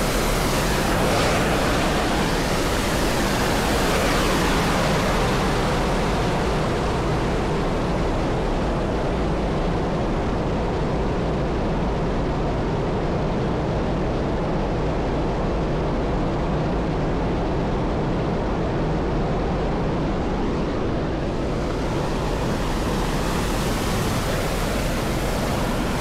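Steady rush of water falling and churning in a small waterfall. The hiss turns duller through the middle stretch and brightens again about three-quarters of the way through.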